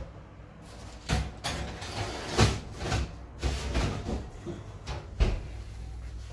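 A baking tray being put into an oven: a series of metal knocks and clatters from the tray, oven rack and oven door, the two sharpest about two and a half and five seconds in.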